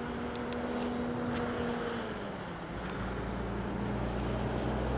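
Boeing 767-300ER's twin jet engines running at taxi power as the airliner taxis and turns: a steady rumble and hiss with a low hum that fades about two seconds in.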